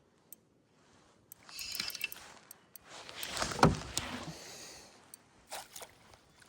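A hooked fish being brought to the boat: a few sharp clicks, then bursts of splashing and handling noise, the loudest about three and a half seconds in, with a shorter one near the end.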